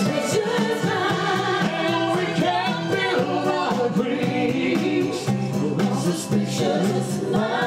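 A woman and a man singing a duet into handheld microphones over backing music with a steady bass line.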